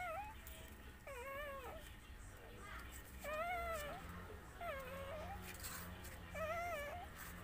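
A young puppy whimpering in short, high cries, about five over several seconds, each bending up and down in pitch.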